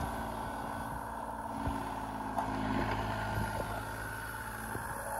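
John Deere 35G compact excavator's diesel engine running steadily, with a few light knocks.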